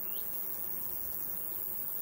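Summer meadow ambience: a steady high-pitched din of insects and crickets, with one short chirp from a bird right at the start.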